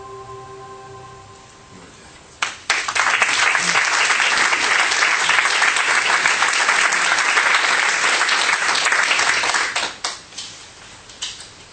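Audience applauding, starting about two and a half seconds in, then dying away to a few scattered claps near the end. Before the applause, a held background-music tone fades out.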